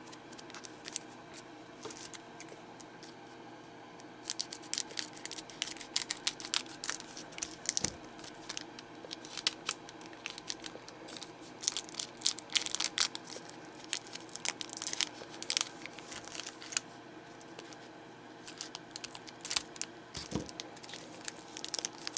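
Trading-card booster pack wrapper being torn open by hand: a run of crackly tearing and crinkling that thickens about four seconds in, with a brief lull near the end.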